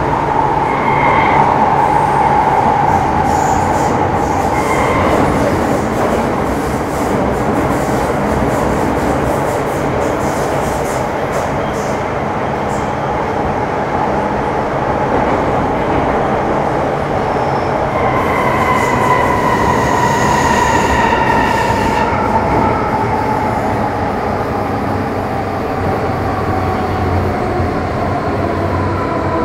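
MTR Metro Cammell M-Train electric multiple unit with GEC GTO chopper traction running in a tunnel: a steady rumble of wheels on rail and motor noise. A little past halfway a whine in several tones sets in and slides steadily down in pitch, as the train slows.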